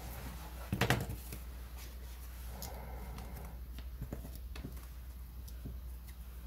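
Small plastic parts being snapped out of a plastic sprue frame and handled: a cluster of sharp clicks about a second in, then scattered light clicks and taps, over a steady low hum.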